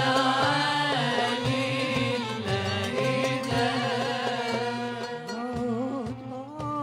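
Moroccan Sufi devotional chant (madih): voices singing a sustained melodic line that wavers and ornaments in pitch, over steady low tones.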